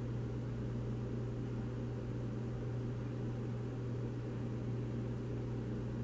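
Steady low hum with a faint hiss under it, unchanging throughout; the milk being poured into the spoon makes no sound that stands out.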